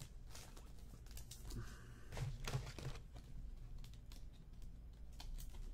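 Trading cards and plastic card sleeves being handled on a tabletop: scattered light clicks and soft plastic rustling.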